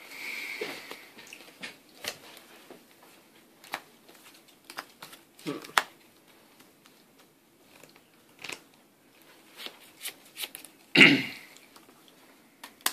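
Scattered light clicks and taps of trading cards being handled and set down on a tabletop playmat. A louder, short vocal sound, like a cough or throat clearing, comes about eleven seconds in.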